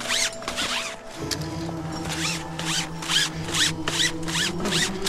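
Climbing rope pulled hand over hand and piled on the snow, a quick run of swishing strokes about two to three a second. Background music with sustained tones plays underneath.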